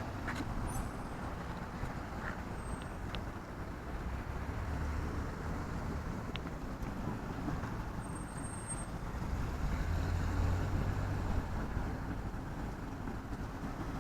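Road traffic running past: a steady low rumble of passing vehicles that swells a little about ten seconds in.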